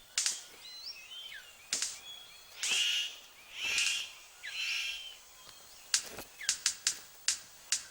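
Male superb bird of paradise in courtship display: a series of harsh, rasping calls about a second apart, with thin chirps between them, then, about six seconds in, a quick run of sharp clicks.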